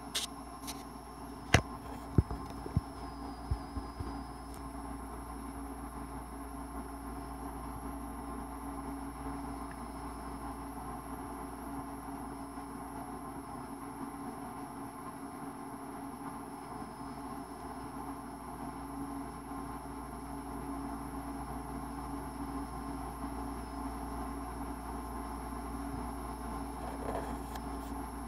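Steady electrical hum and room noise, with a handful of sharp knocks in the first four seconds.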